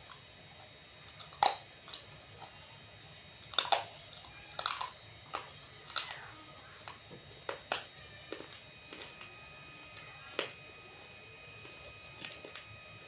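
Roasted multani mitti (Fuller's earth clay) being bitten and chewed: irregular sharp crunches, loudest about a second and a half in and again around three and a half seconds in, spaced out over the rest.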